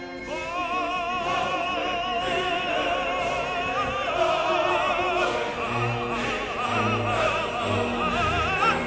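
Background music: a classical piece with an operatic voice singing long notes with wide vibrato.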